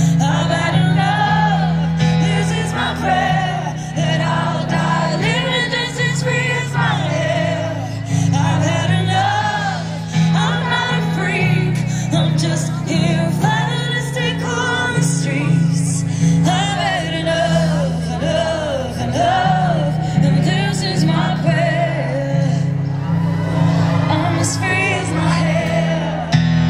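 Live pop ballad: a woman singing held, gliding vocal lines over piano chords that she plays herself.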